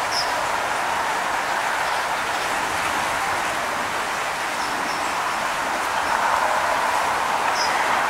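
Steady outdoor background noise with a few faint, short, high bird chirps.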